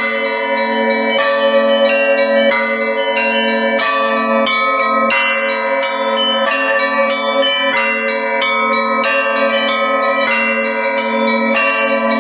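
Russian Orthodox church bells rung in a festive peal: several bells struck over and over about twice a second, the lower bells ringing on underneath.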